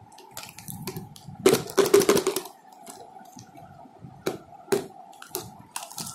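Clear plastic tub with a snap-on plastic lid being handled and opened, the plastic pieces inside rattling in a quick burst about a second and a half in, then several single sharp plastic clicks.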